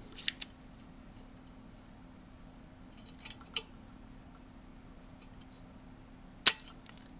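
Sharp clicks and snaps of a spring-loaded solder sucker clearing solder from a speaker terminal joint: two quick clicks near the start, another about three and a half seconds in, and the loudest snap about six and a half seconds in.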